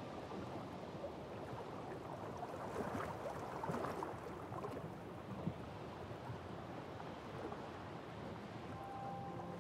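Ocean waves washing in a steady, noisy surge, with one swell building and falling away about three to four seconds in.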